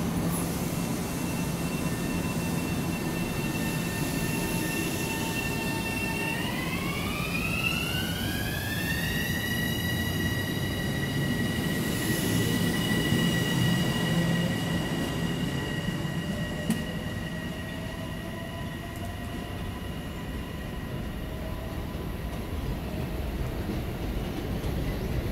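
Long Island Rail Road electric multiple-unit train pulling out of the station: a steady whine from its traction motor inverters rises in pitch from about six seconds in, then holds, over the rolling noise of the cars passing.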